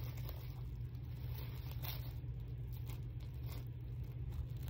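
A steady low hum with a few faint, short clicks and rustles of small things being handled.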